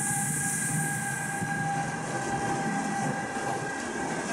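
Freight train of tank wagons rolling past behind a Bombardier TRAXX class 187 electric locomotive: a steady rolling rumble with a thin, steady whine over it.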